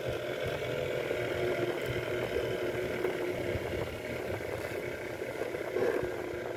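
Steady machine hum with several steady tones, with faint knocks and rustles as wires are pressed into a plastic appliance housing.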